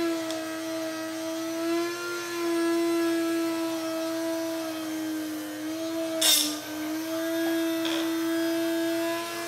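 Kahchan spindle drink mixer running at a steady pitch, its spindle whipping instant coffee, sugar and water into foam in a stainless steel cup. A short burst of noise about six seconds in, with a slight dip in the motor's pitch.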